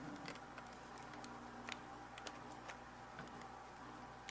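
Scattered light clicks and taps of hand tools and parts being handled, about a dozen at uneven spacing, over a faint steady hum.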